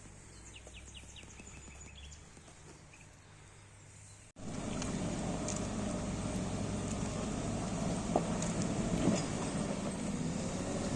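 Faint bird chirps over a distant low engine hum. Then, after a sudden cut about four seconds in, a Cat 140GC motor grader's diesel engine running steadily and much louder, with a couple of knocks.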